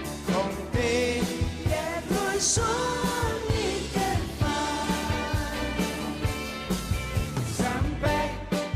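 Background music: a pop-rock song with a singing voice over a steady drum beat.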